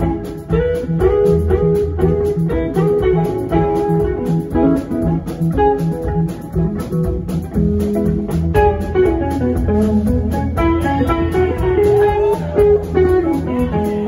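Live rock band playing an instrumental passage: two electric guitars, bass guitar and drums keeping a steady beat. From about halfway through, a guitar line bends and slides up and down in pitch.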